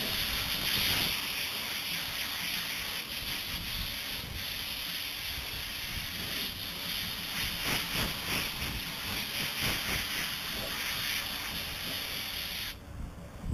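Compressed-air blow gun with a long nozzle hissing steadily as it blows sanding dust off a boat hull, then cutting off abruptly near the end.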